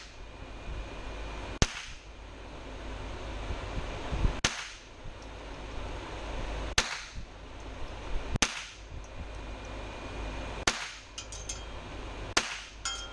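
.22 Long Rifle rifle firing six shots, one about every two seconds, each a sharp crack with a short echo off the walls of an indoor range.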